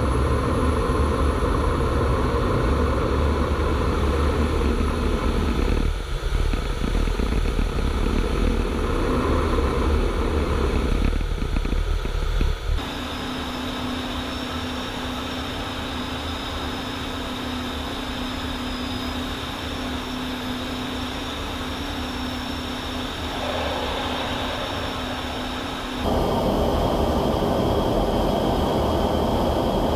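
Cockpit noise of an F-15E Strike Eagle in flight: a steady rush of engine and airflow, heaviest in the low end. A little before halfway it changes abruptly to a quieter stretch with a steady hum and a high whine. Near the end it switches back to the louder rush.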